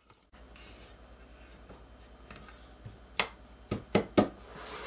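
Wooden parts of a hand-held assembly knocking against each other and the desk: four sharp knocks close together about three to four seconds in, over a faint steady hum.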